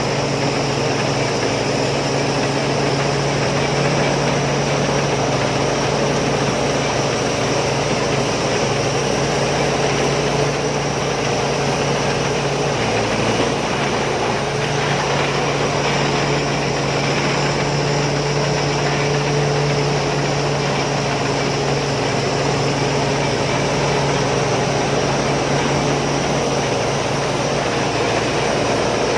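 Combine harvester's diesel engine and machinery running steadily at constant speed, a continuous low hum over a broad mechanical noise.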